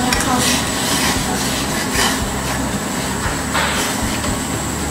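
Spoon stirring jelly mixture in an aluminium pot of boiling water, scraping and clinking against the pot a few times, over the steady rushing noise of a gas burner.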